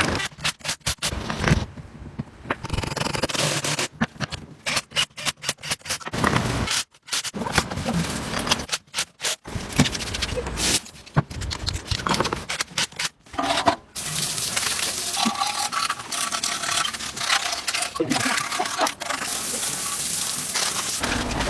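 Scraping and rubbing noises of restoration work, in quick snippets that start and stop abruptly, turning to a steadier, hissy scraping about two-thirds of the way through.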